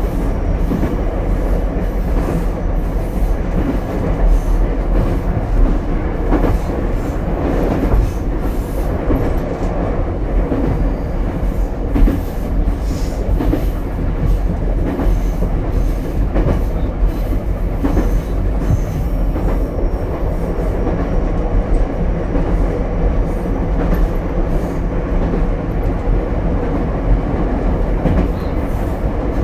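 Running sound heard inside an Ichibata Electric Railway 7000 series single-car train: a steady rumble of the car under way, with irregular wheel knocks and clacks over the rail joints.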